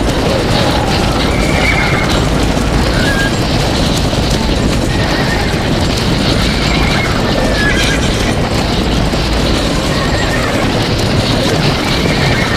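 Stampede of galloping hooves, a dense continuous rumble, with horses whinnying again and again over it.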